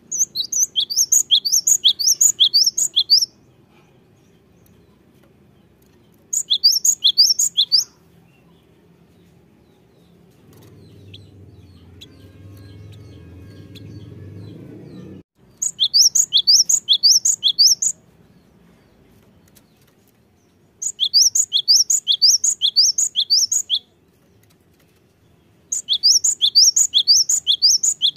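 Cinereous tit (gelatik batu) singing: five bouts of rapid, sharp, high-pitched notes, each lasting two to three seconds, with short pauses between them. A faint low hum sits underneath and swells for a few seconds in the middle.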